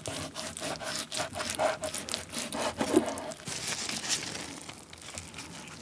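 Kitchen knife slicing through a raw salmon fillet on a wooden cutting board: a quick run of scraping, sawing strokes that thin out and grow quieter near the end as the slice is handled.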